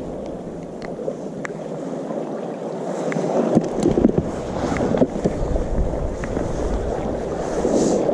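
Steady rush of wind and sea water, with wind buffeting the microphone as a deep rumble from about three and a half seconds in. Scattered small clicks and knocks come from handling the catch and tackle.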